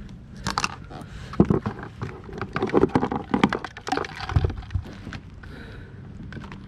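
Handling noise in a plastic kayak while a hook is taken out of a catfish: a run of clicks, rattles and knocks, with a few dull thumps a little past the middle, then it settles.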